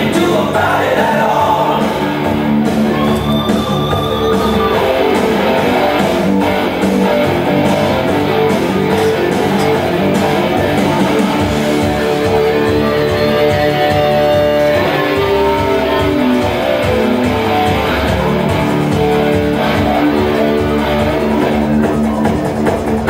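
Loud rock music led by guitar, playing steadily throughout.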